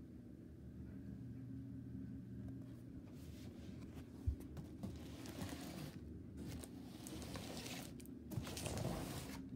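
Cardboard box being handled, rustling and scraping against the cardboard from about three seconds in, with a sharp tap a little after four seconds.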